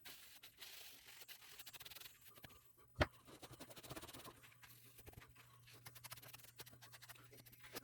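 Faint scratching and rubbing of a Scotch-Brite scouring pad on a garden pruner's blade, with one sharp click about three seconds in.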